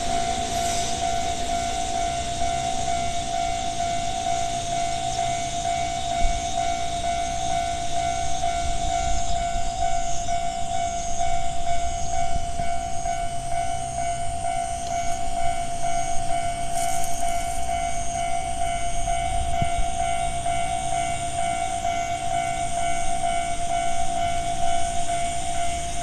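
Japanese railway level-crossing alarm ringing steadily at the active crossing, over a low rumble.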